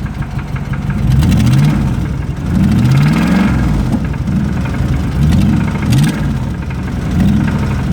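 2005 Dodge Ram's 5.7-litre Hemi V8 revved in about five short blips from idle, each rev rising and falling back. The engine has a rod knock.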